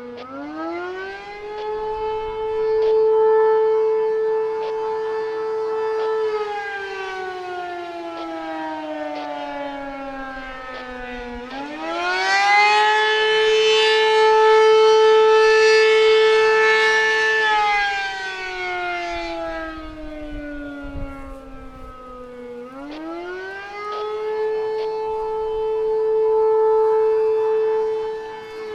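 ACA P-10 eight-port rotating outdoor warning siren sounding the Attack signal: a wailing tone that climbs, holds high for about five seconds, then slides back down, repeating about every eleven seconds. It grows louder each time the rotating horn swings toward the listener.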